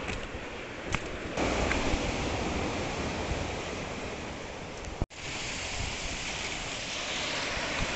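Sea surf washing in over shore rocks, with wind rumbling on the microphone. In the first second or so, a few footsteps on a dirt trail.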